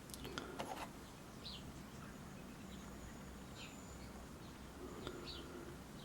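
Faint bird chirps in the background, a few short calls spread out, with a few light clicks in the first second.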